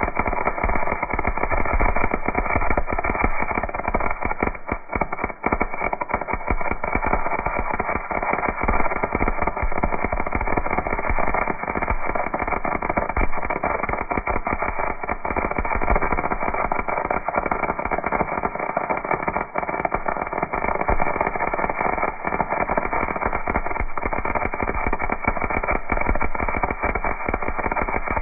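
MIG welding arc crackling steadily: a dense, continuous run of sharp clicks and sizzle as the wire feeds into the weld pool.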